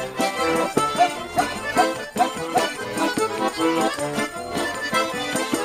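Lively Russian folk dance tune led by an accordion over a steady percussive beat, played as an instrumental passage without singing.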